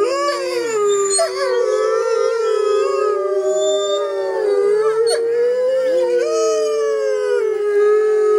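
Several gray wolves howling together in overlapping chorus: one holds a long steady note while others rise and fall in pitch around it.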